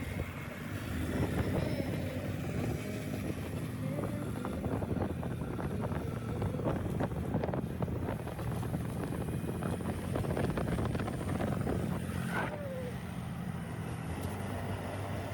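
A vehicle engine running steadily under way, with many small knocks and rattles from driving over a rough track.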